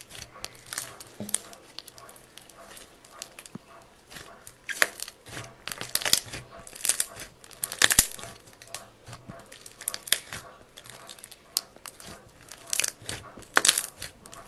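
Hands kneading and squishing foamy white slime as tan clay is mixed into it, giving a run of irregular sticky crackles and small pops.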